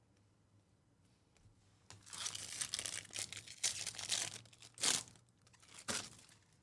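Trading-card pack wrapper being torn open and crinkled by hand, starting about two seconds in, then two short sharp crinkles.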